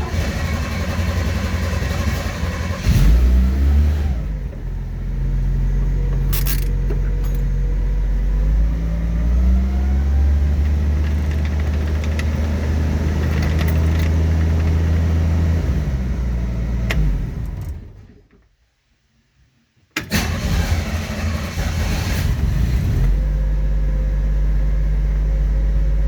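Chevy van engine running on a newly fitted ignition switch, with a brief rev about three seconds in, then a steady idle. It dies away to silence after about seventeen seconds and is running again from about twenty seconds in.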